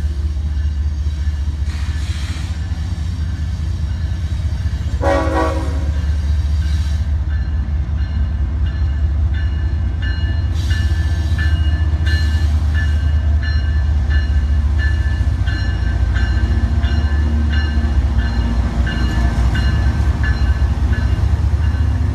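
Train running along a street with a steady heavy low rumble, sounding a short horn blast about five seconds in. From about ten seconds on there is a regular clicking of wheels over rail joints.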